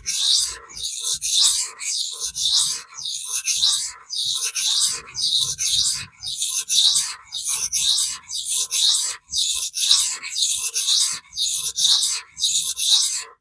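AEB-L stainless steel knife blade being stroked along a vitrified diamond sharpening stone, a steady series of rasping scrapes at about two strokes a second. The stone is cutting steel quickly.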